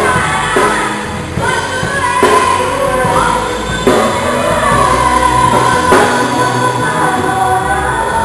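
Worship band rehearsing live: several voices singing together over the instruments, with sharp drum hits every second or two.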